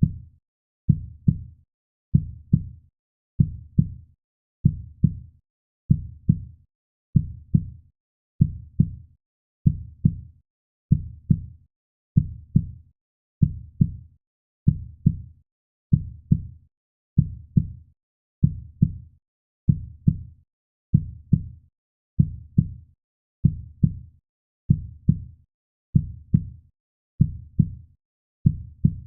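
Heartbeat sound: steady, deep lub-dub double thumps, a little more than one pair a second, evenly spaced with quiet gaps between them.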